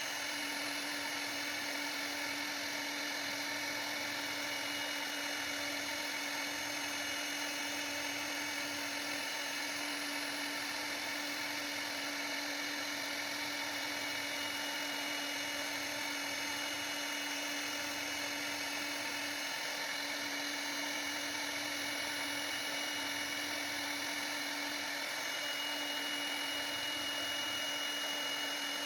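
CNC router spindle running at high speed while cutting, a steady high whine with no change in pitch or level.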